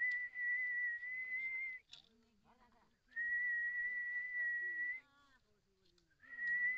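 A man whistling through pursed lips: three long, steady notes held at one high pitch, each about two seconds, with short breaks between; the third begins near the end. It is a whistle meant to call up a breeze.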